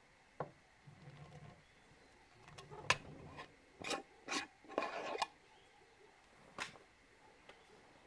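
A glass mason jar with a metal screw lid handled on a wooden table: a string of short clicks and scrapes, bunched together in the middle, as the lid is gripped and turned.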